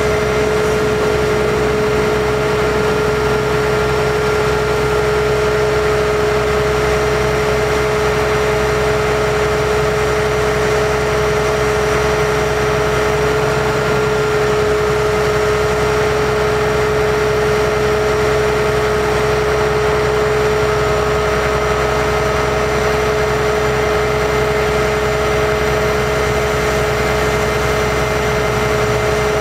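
A 2005 Kenworth T300 bucket truck's Cummins ISC diesel engine runs steadily with its hydraulic pump driving the Hi-Ranger boom. A steady, even whine sits over the engine hum and does not change.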